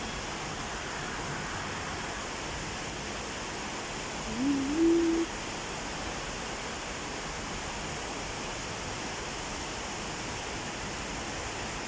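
Heavy rain falling, a steady hiss. About four seconds in, a brief rising tone stands out over the rain for under a second.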